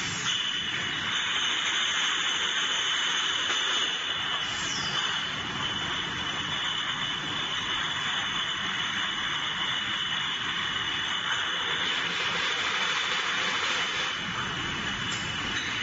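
Steady machinery noise from an automatic de-palletizer and glass-bottle conveyor line: an even rushing hum with a constant high whine, and a brief falling squeal about four seconds in.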